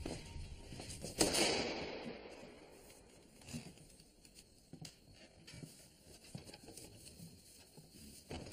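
A sudden noisy burst about a second in that fades away over about a second, followed by faint scattered clicks and rustles of objects and papers being handled during a search.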